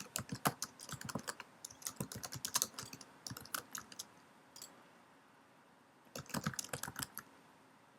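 Typing on a computer keyboard: quick runs of key clicks, pausing for a second or so about halfway through before a second short burst.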